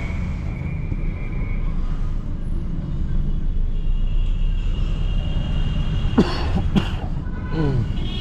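Gridlocked city traffic: engines idling under car horns honking on and off. Near the end come two short, sharp, loud sounds about half a second apart.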